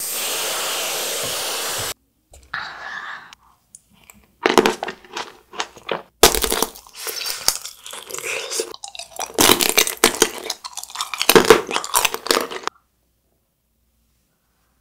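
Aerosol whipped-cream can spraying, a steady hiss of about two seconds. Then crisp Shine Muscat grapes bitten and chewed with loud, repeated crunches.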